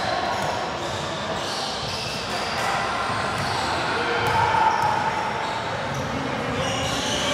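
Basketball game noise in a gym: a ball bouncing on the court now and then, amid a steady wash of players' and spectators' voices.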